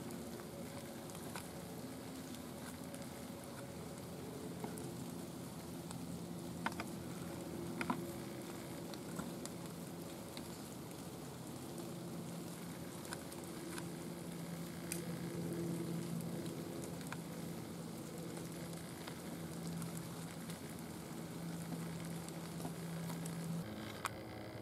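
Quiet woodland ambience: a steady hiss with a faint low hum that comes and goes, and a few soft clicks about seven and eight seconds in.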